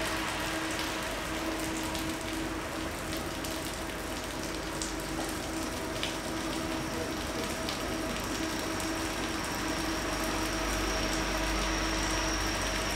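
Steady rain falling on and around a station platform while KiwiRail AK passenger carriages roll slowly past, with a steady hum from the train. A thin, high whine joins about two-thirds of the way through.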